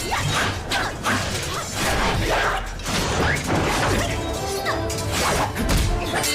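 Martial-arts fight sound effects, a rapid run of whooshes and hits over a dramatic music score, with the music's held tones coming forward over the last couple of seconds.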